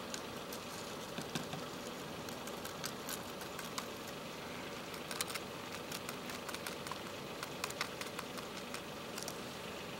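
Steady outdoor background hiss with faint, irregular ticks and clicks scattered through it.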